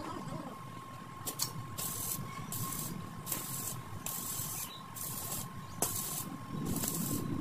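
Short hissing strokes repeating about one and a half times a second, starting about two seconds in, over a faint steady high tone. A sharp click comes just before the strokes begin and another about six seconds in.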